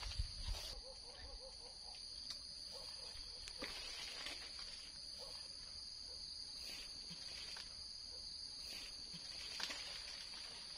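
Steady, high-pitched chirring of insects, crickets or the like, with scattered light rustles and clicks from a small monkey climbing through tree branches.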